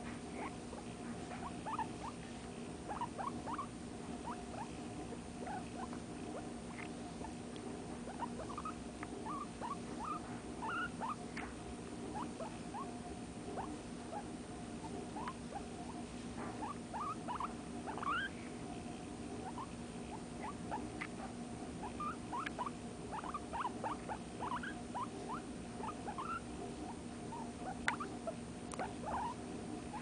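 Guinea pig making short rising squeaks in irregular runs, several a second at times, as it is stroked; the owner takes the sounds for contentment.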